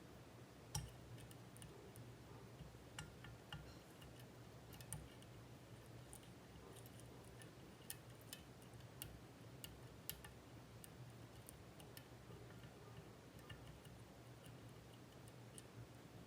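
Faint, irregular small clicks of lock picks working the pins inside a Mul-T-Lock Junior lock, a few ticks every second or two over a faint low hum.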